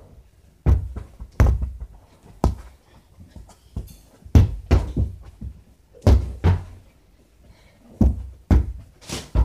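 Rubber ball being kicked and bouncing off the floor and walls: a run of sharp, uneven thuds, about a dozen, some coming in quick pairs.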